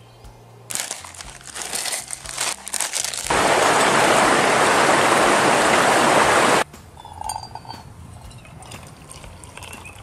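Loud, steady rushing of a stream for about three seconds, starting and stopping abruptly, with light crackling and clinking of camp cookware before and after it.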